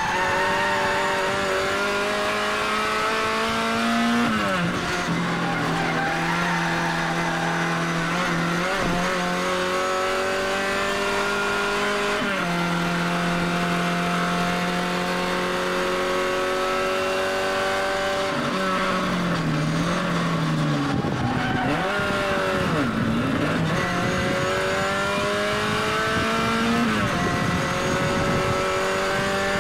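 Classic Mini race car's A-series four-cylinder engine running hard at racing speed, heard from inside the cabin. Its pitch climbs steadily through each gear and drops sharply at gear changes about four and twelve seconds in. Through the second half the revs dip and climb back several times.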